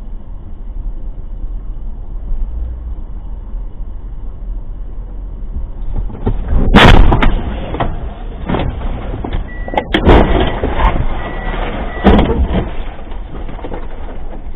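Car cabin road noise heard through a dashcam, then a loud crash about halfway through as the car collides, followed by two more heavy bangs a couple of seconds apart.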